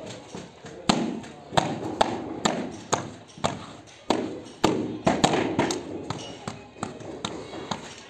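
Sharp taps and knocks, about a dozen at uneven intervals, as a tiling float is struck against freshly laid glass mosaic tiles to bed them into the adhesive.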